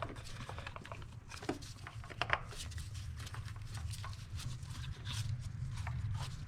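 Scattered light clicks and knocks of plastic ignition coil packs being pressed down by hand to seat them on the engine, over a low steady hum.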